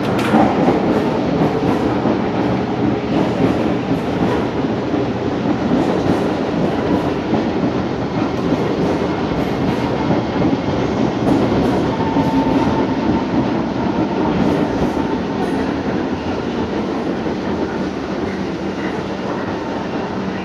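SMRT C651 metro train running away along elevated track: a steady rumble of wheels on rail that slowly fades as it pulls away.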